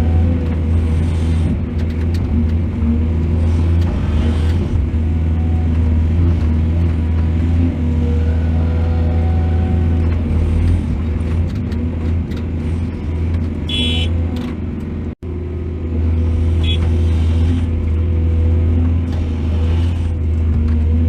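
Excavator's diesel engine running steadily under load, a deep drone with a low hum. A short, high metallic squeal comes about two-thirds of the way through, and a shorter one soon after, with the sound cutting out for an instant between them.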